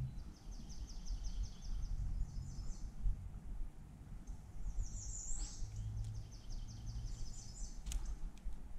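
Songbirds singing: several rapid trilled runs of high notes, with one call sliding steeply down in pitch about halfway through, over a low background rumble. A single sharp click near the end.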